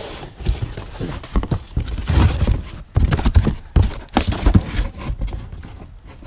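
Framed prints and magazines being rummaged through by hand in a cardboard box: a run of irregular knocks, thumps and scraping, heaviest in the middle.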